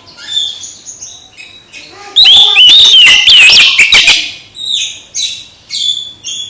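Oriental magpie-robin (kacer) singing: varied short whistled phrases, with a very loud, rapid run of high sweeping whistles from about two to four seconds in.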